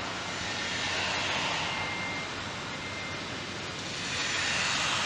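A steady rushing noise that swells a little and eases off, with a faint thin whistle now and then.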